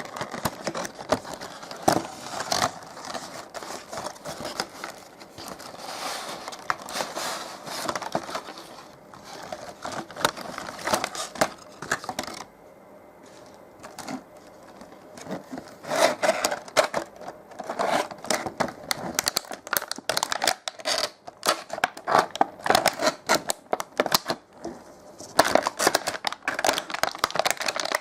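Toy packaging being handled and opened: irregular crinkling, scraping and clicking. There is a quieter spell about halfway through.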